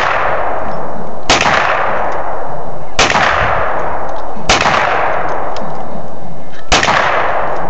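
Four handgun shots fired one at a time, about one and a half to two seconds apart. Each is a sharp crack followed by a long fading ring.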